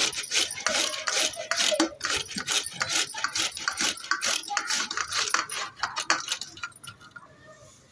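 A red carrot being grated on a stainless-steel box grater: quick back-and-forth rasping strokes, several a second, that thin out and fade near the end.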